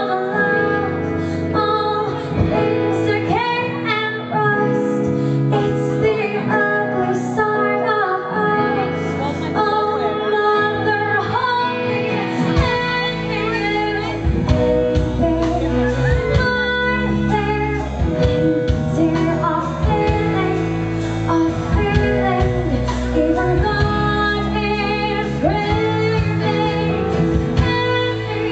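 A female singer sings live into a microphone over band accompaniment. Deep bass notes come in partway through.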